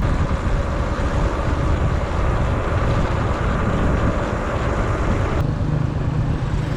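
A motor vehicle running, with loud wind noise rushing over the microphone. About five seconds in, the rushing suddenly drops away and a steady low engine hum is left.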